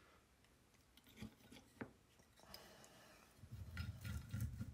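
Quiet handling noise: a couple of faint clicks, then a rustle and low rumble near the end as the LED menorah circuit board is picked up and moved on the desk.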